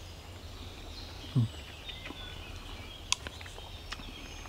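Woodland birds chirping over a steady low outdoor rumble. About a second and a half in comes a short, low sound that falls in pitch, and around three seconds a couple of sharp clicks of a spoon against a wooden bowl.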